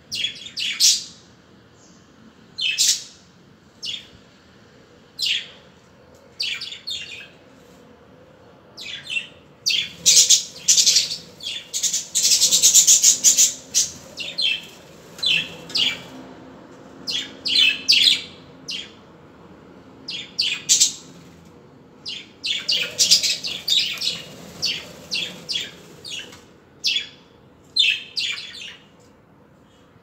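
A flock of budgerigars chirping and chattering: short, sharp calls come every second or so, with denser runs of rapid chatter from about ten to fourteen seconds in and again around twenty-three seconds.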